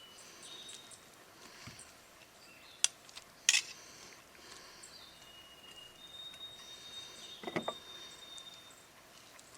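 Quiet outdoor ambience with faint bird calls, including one long thin whistled note in the second half. Two sharp clicks about three seconds in.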